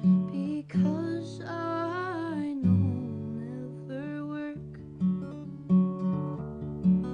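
Acoustic guitar playing a song with a steady strummed pulse. A sung vocal line glides up and down over it about a second in, and again briefly around four seconds.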